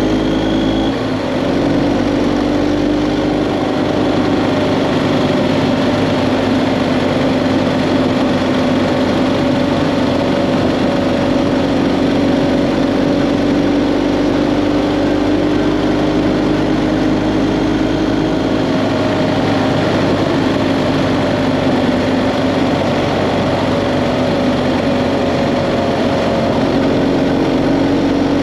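BMW GS Adventure motorcycle engine running at road speed, its pitch drifting slowly up and down, under steady wind and road noise.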